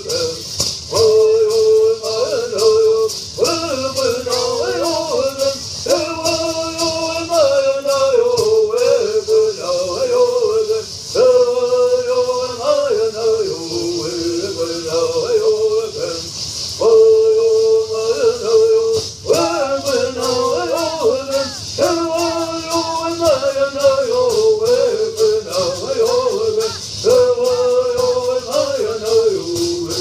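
Southern California bird songs: a group of singers chanting in unison in repeated phrases a few seconds long, each ending with a short break, while they shake gourd rattles in a steady rhythm.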